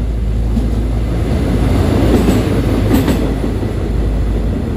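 Taiwan Railways CMB-51 overhead-line maintenance vehicle running past on the rails, a loud rumble that builds to its peak about two to three seconds in, with a couple of sharp clicks of the wheels near three seconds.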